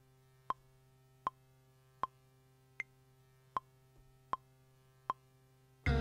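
Metronome clicking steadily at about 78 beats a minute, with a higher accented click on every fourth beat, from a Maschine MK3 drum-machine setup with the beat stopped. The beat music comes back in right at the end.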